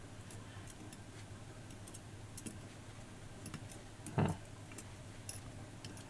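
Faint, irregular light clicks of steel tweezers and tiny lock pins tapping in a brass pin tray, with one brief louder sound about four seconds in.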